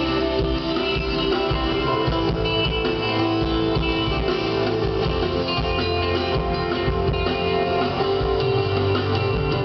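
Music with a prominent guitar and bass, playing steadily through a PA sound system during a sound check.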